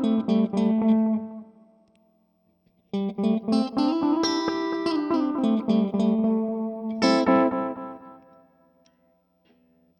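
Electric guitar played through an Aqua Puss-style analog delay pedal with an MN3005 bucket-brigade chip. A phrase ends about a second in and its echoes fade out, a new phrase starts about three seconds in, and a chord struck about seven seconds in rings and dies away.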